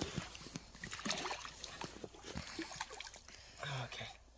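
Shallow river water splashing and sloshing in short irregular strokes as a large hooked carp thrashes in the shallows and is grabbed by hand.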